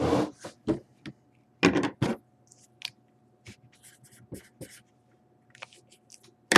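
A trading card slid and handled on a tabletop, then a marker writing on paper in short scratchy strokes.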